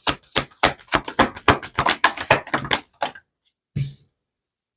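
Tarot deck being shuffled by hand: a quick run of card slaps, about five a second, for some three seconds, then one more flap of cards near the end.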